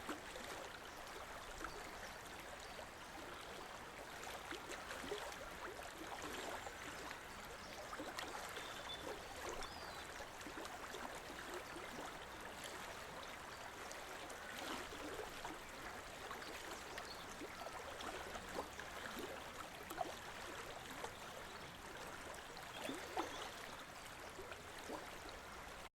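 River flowing: a steady rush of running water with many small splashes and gurgles through it.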